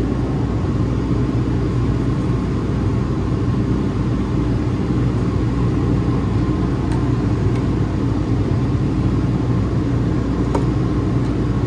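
Steady low mechanical hum of an engine or motor running at an even pitch, with one small click near the end.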